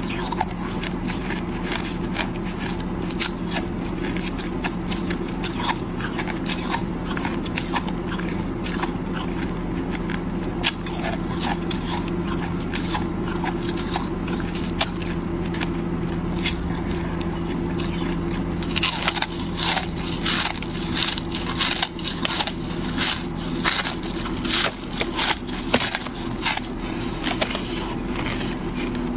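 Clear ice being bitten and crunched between the teeth, a run of sharp cracks and crackles that grows denser and louder about two-thirds of the way through. A steady low hum runs underneath.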